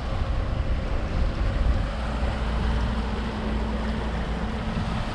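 Steady drone of a center-console fishing boat underway at trolling speed: its outboard engines running with a low rumble and a faint steady hum, mixed with wind on the microphone and water noise.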